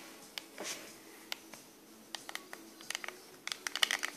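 Keys of an iPazzPort KP-810-10BTT mini handheld Bluetooth keyboard clicking as someone types: a few scattered keystrokes, then a quick flurry of them near the end.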